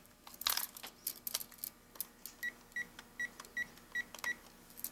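A cordless phone handset is picked up with a few sharp clicks and clatter, then six short, evenly spaced beeps at one pitch sound, about two and a half a second, as its number keys are pressed to dial.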